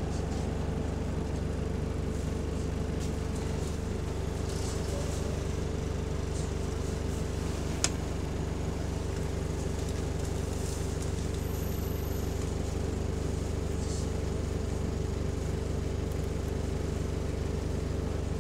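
Bus engine running steadily, heard from inside the passenger saloon, with a steady whine over a low drone from a bus fitted with a hydraulic cooling fan. A single sharp click about eight seconds in.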